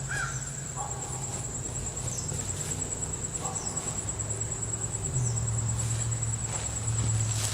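Insects trilling in a continuous high-pitched pulsing tone over a low steady hum, which grows a little louder about five seconds in, with a few faint short chirps.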